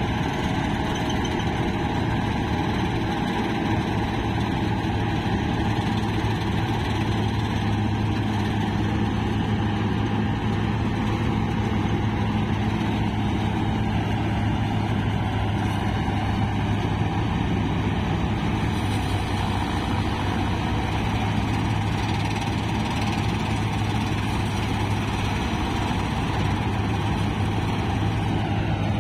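Tractor-mounted Balkar B-525 combine harvester on a Mahindra Arjun tractor running while it cuts and threshes paddy: the tractor's diesel engine and the threshing machinery make a steady drone with a strong low hum.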